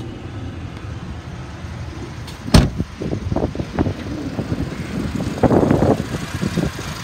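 Dodge Ram 3500's 5.9-litre gas V8 idling steadily, with a single loud slam about two and a half seconds in as the truck's door is shut. Scattered light knocks and a brief rustle follow a few seconds later.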